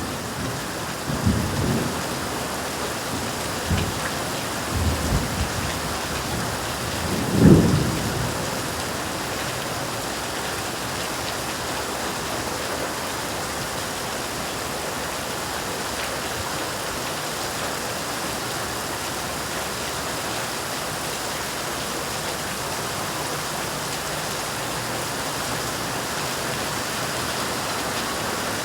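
Heavy, steady rain in a thunderstorm. Low rolls of thunder come in the first eight seconds or so, the loudest about seven seconds in, and then the rain goes on alone.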